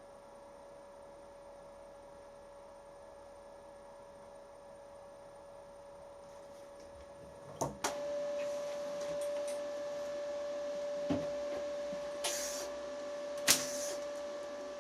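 A machine's electric motor running with a steady whine that gets louder about halfway through, with a few sharp clicks and knocks over it.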